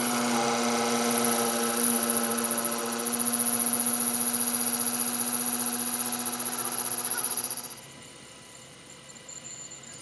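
A power tool or machine motor running steadily with a high whine and a lower hum, thinning out in the last couple of seconds.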